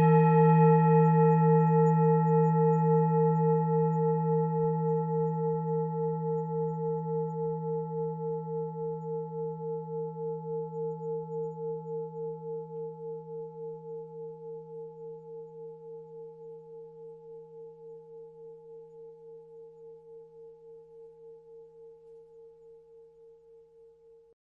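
A Tibetan singing bowl rings out after being struck, a low hum under several higher ringing tones. The tone wavers in a slow, steady pulse and fades away gradually to almost nothing.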